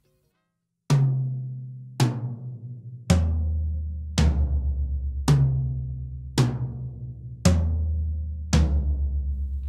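Gretsch Renown toms (12, 13, 16 and 18-inch) with clear Remo Pinstripe heads, tuned medium and left unmuffled, struck singly with a stick. There are eight hits about a second apart, running from the highest tom down to the lowest twice, each ringing open and dying away before the next.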